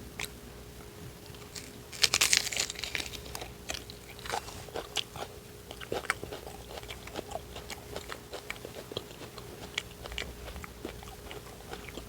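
A person biting into a deviled egg sandwich with lettuce: a crunchy bite about two seconds in, followed by chewing with scattered small wet clicks and crunches.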